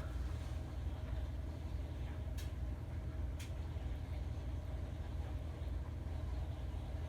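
A steady low rumble of background noise, with two faint clicks about two and three and a half seconds in.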